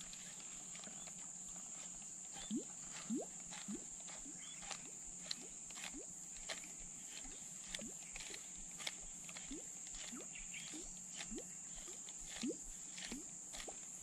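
Faint, steady high-pitched insect drone of the riverside jungle, with short rising chirps about once or twice a second and scattered soft clicks.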